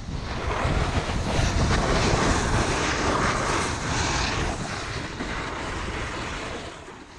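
Wind buffeting an action camera's microphone while riding down a snow slope behind a snowboarder, mixed with the hiss of boards sliding over snow; the rush gradually fades toward the end.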